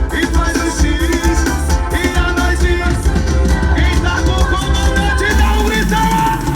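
Loud music with a heavy bass beat and a melody line that bends up and down; the bass drops away briefly near the end.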